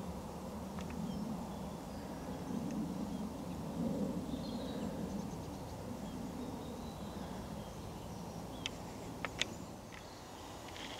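Fallow deer buck groaning in the rut: a series of low, rhythmic groans about a second apart that fade out after about seven seconds. A few sharp clicks follow near the end, with faint bird calls.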